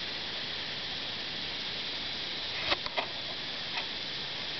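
Steady background hiss, with a few light clicks about three seconds in.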